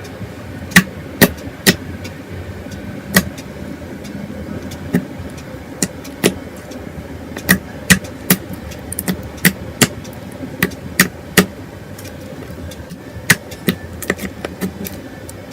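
Freshly made face-mask slime being squeezed and handled, giving sharp, loud clicks and pops at irregular intervals over a steady background hiss.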